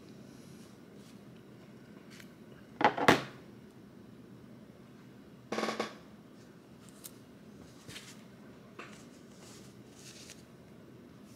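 Handling noises of a phone and its SIM card tray worked by hand on a desk: a sharp double knock about three seconds in, the loudest sound, then a short scrape a few seconds later, a few faint clicks and a soft rustle near the end.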